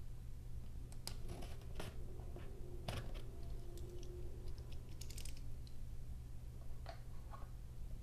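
Utility knife (box cutter) slitting the seal of a cardboard box: scattered scratchy cuts, clicks and taps as the blade, box and knife are handled, the sharpest click about three seconds in, over a steady low hum.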